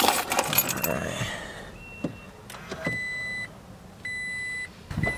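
Toyota Tacoma's dashboard warning chime: steady electronic beeps, each about half a second long, repeating about once a second from about halfway in, after some rustling and clicks of handling in the cab.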